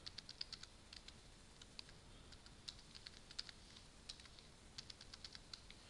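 Faint keystrokes on a computer keyboard, tapped out in quick irregular runs as a password is typed and then retyped.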